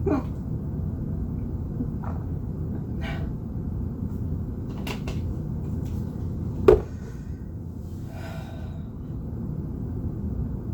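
A person hiccuping several times at irregular intervals of about one to two seconds, each hiccup short and sudden, the loudest about two-thirds of the way through. A steady low rumble runs underneath.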